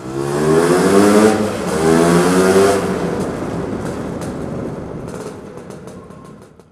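Lambretta scooter's two-stroke engine revving up under way, rising in pitch twice. It then eases off with a run of sharp pops and fades out near the end.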